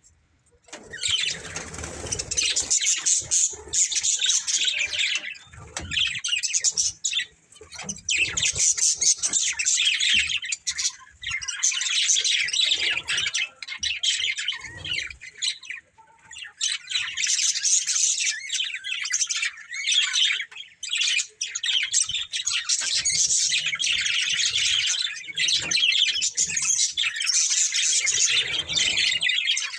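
Budgerigars chattering: a dense, continuous warble of rapid high chirps and squawks, starting about a second in and broken only by brief pauses.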